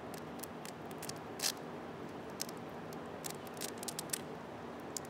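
Velcro strap on a sneaker being peeled open slowly, giving a string of faint, irregular crackles, one louder rip about a second and a half in.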